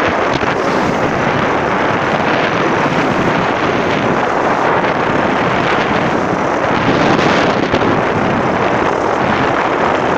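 Steady rush of wind buffeting the microphone aboard a small wooden boat under way through choppy sea, with the hull's water noise and motor blended into it.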